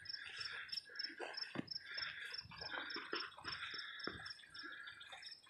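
Crickets chirping in a steady, even rhythm of about four chirps a second, with soft footsteps on grass underneath.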